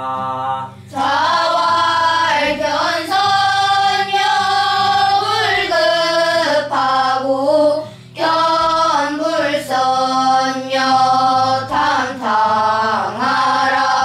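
A group of children chanting a classical Chinese text aloud in unison in the traditional Korean seongdok style. The voices hold and glide long sung notes in phrases of two to three seconds, pausing briefly for breath between them.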